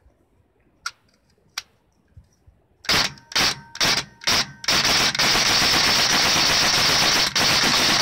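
Tokyo Marui next-generation electric airsoft rifle (an HK416-style high-speed semi-custom) firing: two light clicks, then five quick single shots about half a second apart, then a long unbroken full-auto string.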